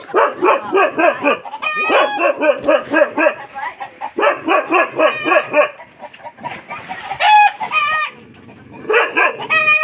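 Animal calls: three runs of short, rapid, pitched calls at several a second, then a few longer, drawn-out calls near the end.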